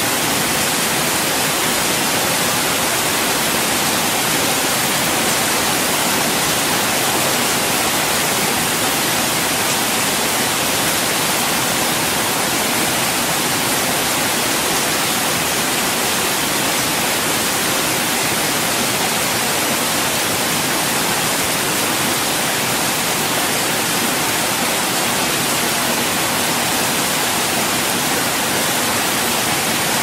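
Light rain falling on a wet concrete path, a steady, even hiss of fine drops.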